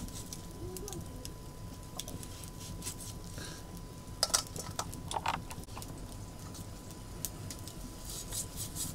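Raw meat being cut by hand with a curved sickle blade over steel plates: a few light clicks and clinks of blade and pieces against the metal, the clearest about four and five seconds in, with more faint clicks near the end.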